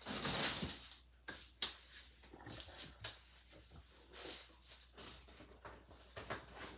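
Rustling and handling noise as things are moved about and rummaged through, with a rustle at the start, a few short knocks and clicks, and another rustle a little past the middle.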